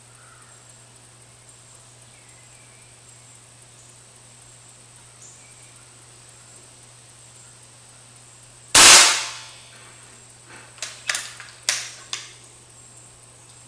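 A .22 FX Dreamline PCP air rifle firing a single shot, a sharp crack about nine seconds in that dies away within a second, its regulator turned up to the 890–900 fps range. A few lighter, sharp clicks follow over the next few seconds.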